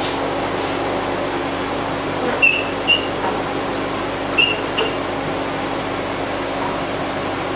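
A workshop machine running steadily with a constant hum, with two pairs of short high chirps a little past the middle.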